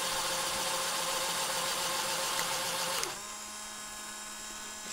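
Small electric motors of a Mould King 19002 pneumatic crane truck whirring steadily, then cutting off about three seconds in, leaving a faint steady hum.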